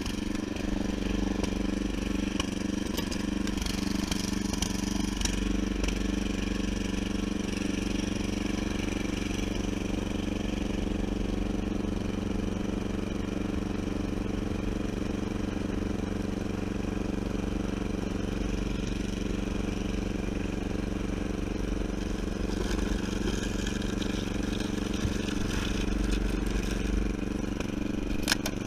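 12 hp Briggs & Stratton engine on a Snapper rear-engine mower running steadily under load as the mower pushes snow with a front plow blade. A couple of sharp clicks near the end.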